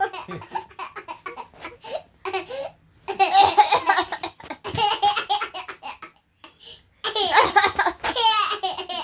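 A young child laughing heartily, in two long bursts about three and seven seconds in, with shorter giggles between.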